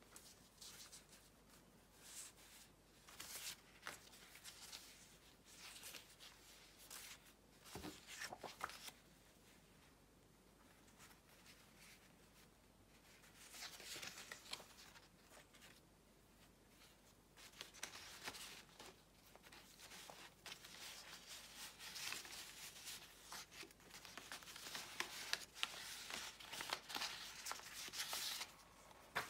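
Paper and card rustling and sliding as the pages of a junk journal made from an old book are turned and loose papers, an envelope and a card are picked up and laid down. The handling comes in short spells with quieter gaps, busier toward the end.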